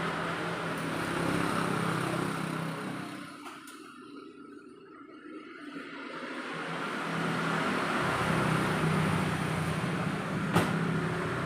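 An engine running steadily, fading away about three and a half seconds in and building back up by about seven seconds, with a single sharp click near the end.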